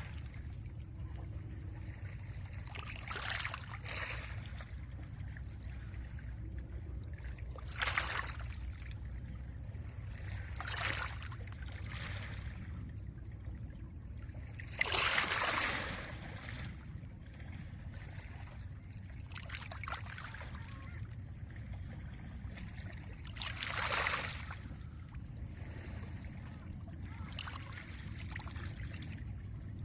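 Small lake waves washing onto a pebble beach, a splash every few seconds, over a steady low rumble of wind.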